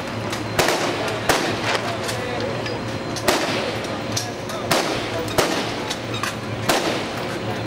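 Rifles firing from a prone firing line: about nine sharp single shots at irregular intervals from several shooters, over a steady low hum.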